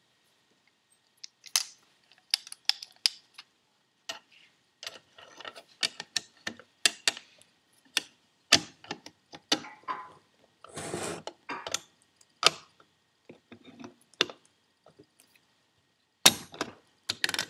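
Steel pliers working a C-clip into place on a Holset HX40 turbocharger's bearing housing: irregular sharp metal clicks and clinks, with a short scrape about two-thirds through and two louder clicks near the end.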